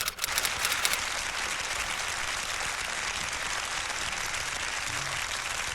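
Audience applause from a live concert recording: a few separate claps at first, then a long, steady, even wash of clapping.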